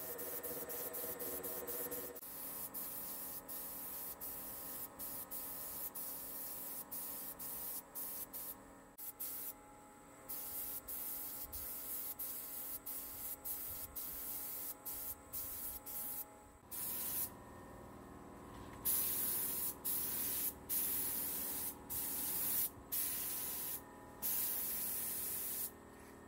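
Air-driven gravity-feed paint spray gun hissing in repeated bursts as the trigger is pulled and released, with longer bursts of about a second each in the second half.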